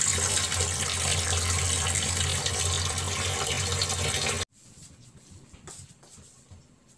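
Kitchen tap running steadily into a sink, stopping abruptly about four and a half seconds in; afterwards only a few faint light knocks.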